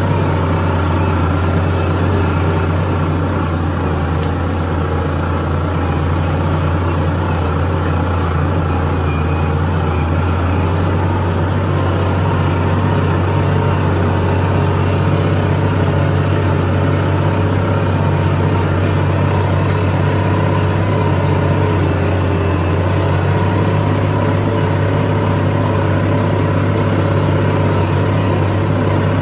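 Farm tractor's diesel engine running steadily, heard from the driver's seat inside the cab while it pulls a disc harrow through the field.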